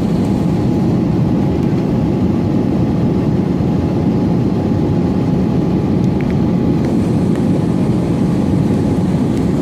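Airbus A320 in flight, heard inside the passenger cabin: a steady, even rumble of engines and airflow with a faint steady tone above it.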